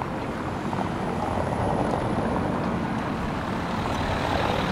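Steady, even engine rumble over outdoor city street noise.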